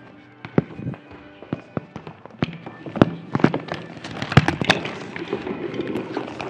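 Children's footsteps clattering on a wooden stage floor and steps, a quick irregular run of sharp knocks that grows busier from about halfway through, over soft background music.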